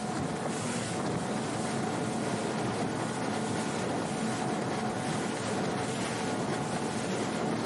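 Small outboard-powered boat running at speed: a steady rush of wind on the microphone and water spray off the hull, with the outboard motor's steady hum underneath.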